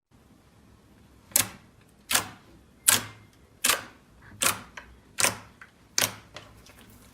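Slime being worked by hand, giving seven sharp popping clicks at an even pace of a little more than one a second, each fading quickly, with fainter small clicks between.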